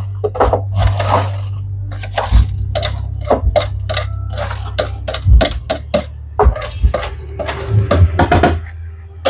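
Freshly popped popcorn being scooped by hand out of a popcorn machine's display cabinet: irregular dry crunching and rustling, over a steady low hum.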